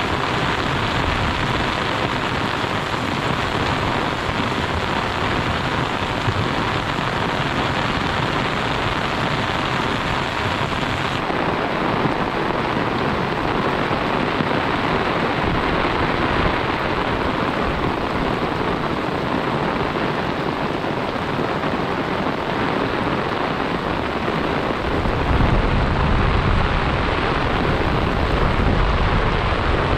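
Heavy rain falling steadily, a dense even hiss. About 25 seconds in, a low rumble joins it.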